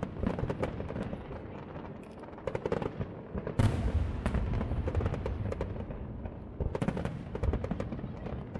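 Aerial fireworks bursting in clusters of quick bangs and crackle, with the loudest boom about three and a half seconds in, followed by low rumble.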